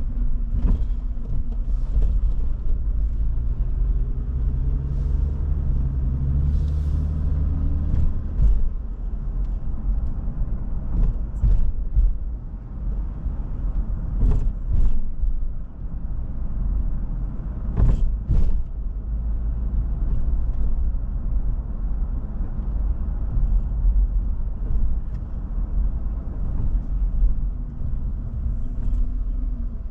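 A car driving: steady engine and road rumble, with the engine note rising as it speeds up between about four and eight seconds in, and a few short knocks later on.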